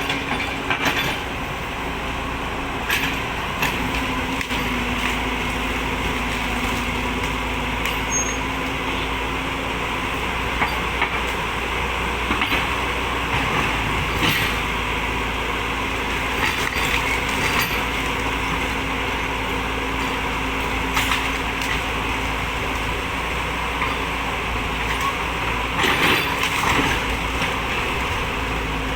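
Excavator's diesel engine running steadily, with scattered short sharp knocks a few seconds apart, the loudest cluster near the end.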